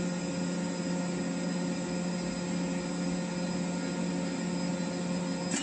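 Steady hum of gas turbine plant machinery, with a strong low drone and several higher steady tones over a wide hiss. It cuts off abruptly with a click near the end.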